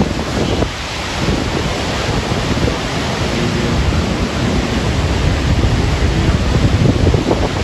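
Gusty wind buffeting the microphone: a loud low rumble that rises and falls, over a steady rushing hiss.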